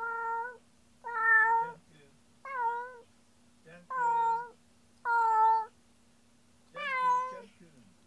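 Domestic cat meowing repeatedly: six drawn-out meows, about one every second or so.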